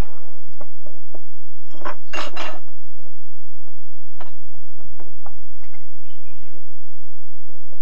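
Crockery and cutlery clinking and rattling on a breakfast table as an elephant's trunk rummages among the cups, plates and pots, with a louder clatter about two seconds in.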